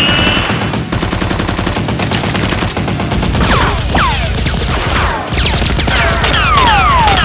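Rapid automatic gunfire, a dense string of shots with no break. It is mixed with several falling whistles, like ricochets, about halfway through and again near the end.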